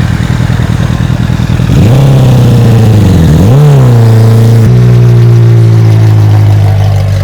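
McLaren 720S twin-turbo V8 with catless downpipes and a straight-pipe exhaust, very loud under acceleration. The pitch climbs, drops briefly at a gear change, climbs again, then holds steady.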